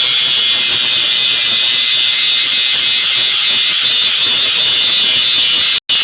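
Power grinder running continuously against the steel of a knife blade, a steady high-pitched grinding hiss that drops out for an instant near the end.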